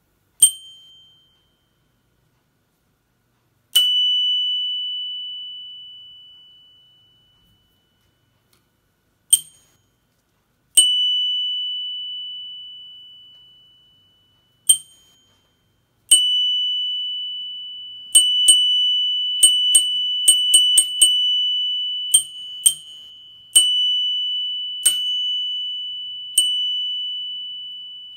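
Two Knog Oi handlebar bike bells struck in turn by their spring-loaded hammers, a faulty first-batch bell and its replacement compared side by side. Some dings are cut short within half a second, while others ring on clearly for about three seconds. In the second half comes a quick run of about a dozen strikes, then more single dings.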